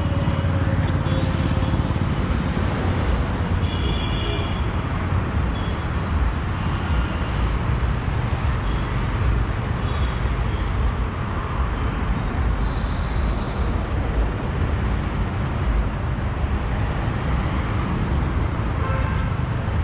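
Steady road traffic on a busy city road: cars, auto-rickshaws and motorcycles running past in a continuous rumble, with a brief high-pitched tone about four seconds in.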